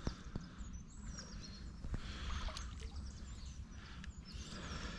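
Quiet outdoor ambience: a steady low rumble, a few faint high bird chirps and a few soft clicks.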